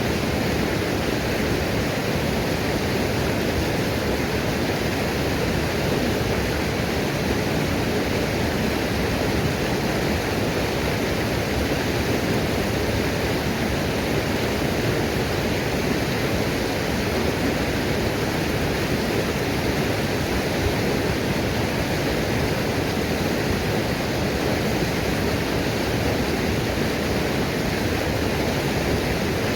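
Waterfall's falling water rushing steadily, an even wash of sound that does not change.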